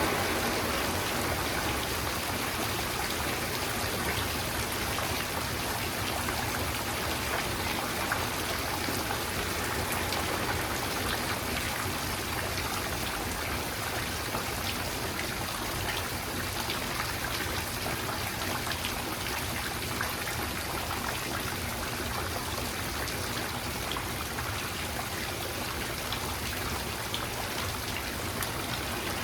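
Steady rainfall, an even hiss with scattered individual drops ticking on surfaces.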